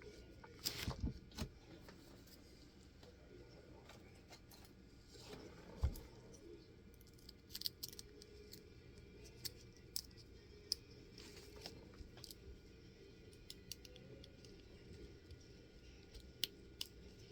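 Faint, scattered clicks and taps of small tools working at a cut-open EVVA lock cylinder, prying at a part that is hard to get off.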